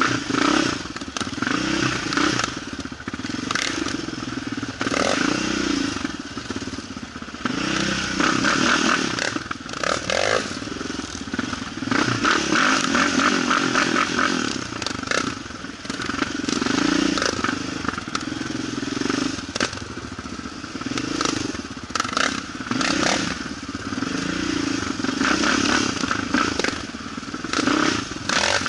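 Quad (ATV) engine running under changing throttle, its pitch and loudness rising and falling, with frequent rattles and knocks as it drives over rough ground.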